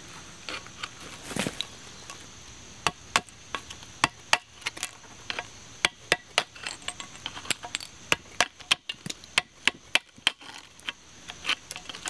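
A steel chisel chipping and scraping at the edge of a concrete slab: irregular sharp taps, several a second, some much louder than others.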